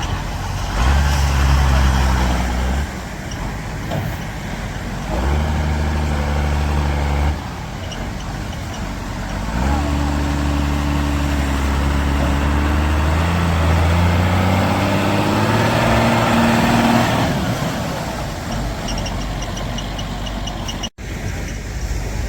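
Off-road 4x4 vehicle engines accelerating in repeated bursts under load. One engine climbs steadily in pitch for several seconds around two thirds of the way through.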